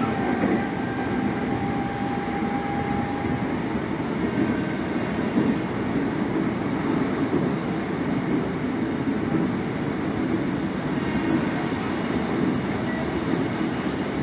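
Ex-Tokyo Metro 05 series electric commuter train running, heard inside the passenger car: a steady rumble of wheels on rail. A thin steady whine is heard over it and fades out in the first few seconds.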